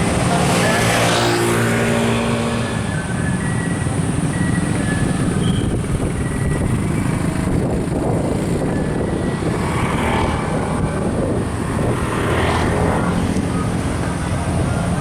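Motor vehicle engines running with steady road noise, and the whoosh of vehicles passing by a few times.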